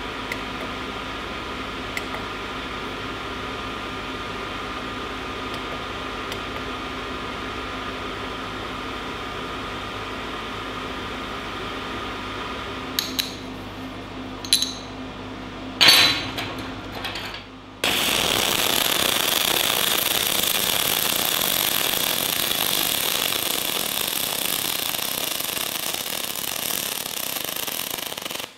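Decapower SYNMIG-200 multi-process welder's arc crackling steadily, broken by a few sharp clicks. It then strikes up again louder and hissier for about ten seconds and stops abruptly.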